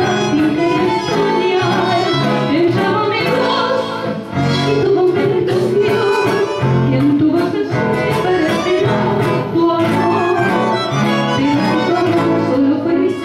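A woman singing a Spanish-language song into a handheld microphone over instrumental accompaniment with a steady beat.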